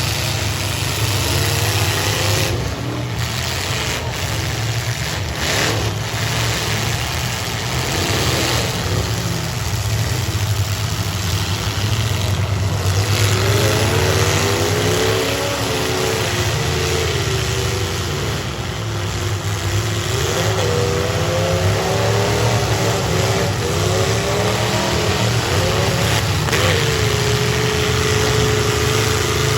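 Several bone-stock V8 full-size demolition derby cars running together, engines revving up and down over a constant low roar. Near the end one note is held steady for a few seconds.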